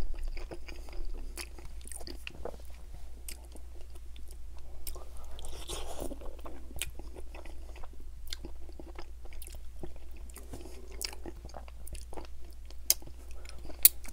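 A person chewing and biting barbecue-sauced ribs, pulling the meat off the bone, with many short sharp mouth clicks and smacks throughout.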